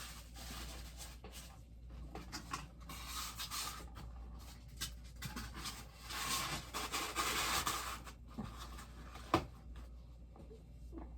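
Handling noises from boxes and packaging being moved and rubbed: irregular rustling and scraping, loudest in two stretches, with one sharp knock near the end.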